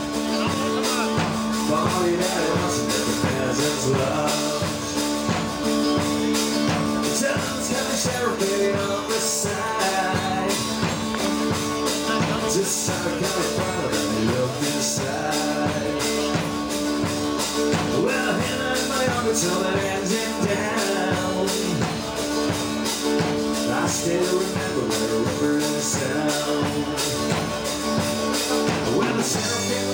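Live country band playing an upbeat rock-and-roll style tune on electric and acoustic guitars, with a steady beat.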